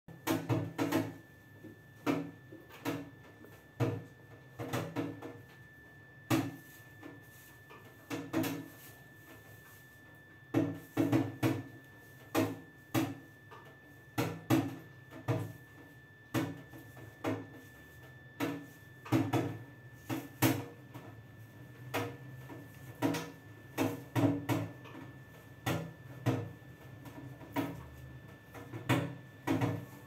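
A yellow-crested white cockatoo flapping its wings hard, heard as a string of dull thumps and flutters in quick clusters of two to four, with short pauses between.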